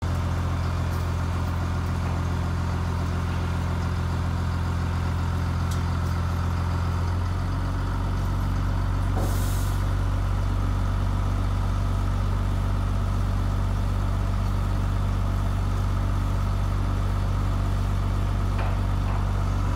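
Crane truck's engine running steadily, its low note shifting about seven seconds in, with a short hiss about nine seconds in.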